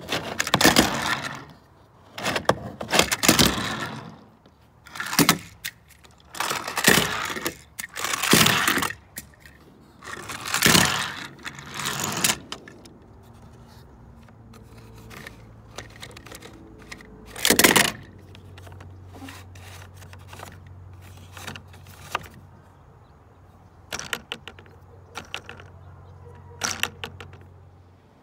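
Plastic toy playset and a toy car being worked by hand: repeated short bursts of plastic rattling and scraping, then a quieter stretch with a low steady hum and a few light clicks near the end.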